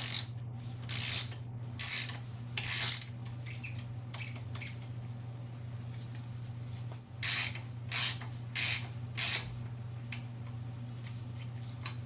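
Hand wrench working the nuts on a coil-spring front strut held in spring compressors: a series of short scraping metal strokes, roughly one a second with pauses, over a steady low hum.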